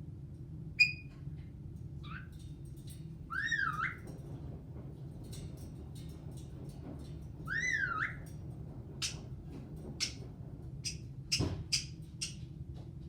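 Caique parrot calling: a sharp chirp about a second in, then two matching swooping whistles, then a quick run of short, sharp squeaks near the end.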